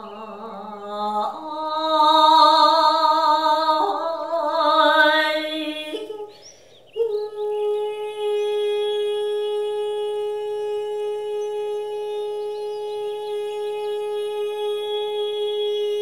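Background music of long sustained notes: wavering, vibrato-laden tones that step between pitches for the first several seconds, a short pause, then a single long steady held note from about seven seconds in.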